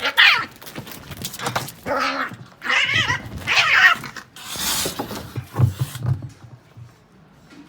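Cats fighting: a run of short yowls and growls that bend in pitch, a harsh noisy burst about four and a half seconds in, then a few low thumps, after which it goes quiet.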